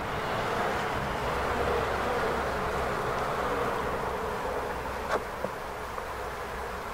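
Honey bee colony humming steadily inside an insulated plastic hive, heard close against the hive body. There is a light click about five seconds in.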